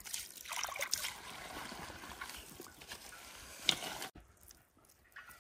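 A hand mixing sliced vegetables into wet gram-flour pakora batter in a steel tray: irregular wet squishing and rustling, with a sharp click near the end. The sound cuts off about four seconds in.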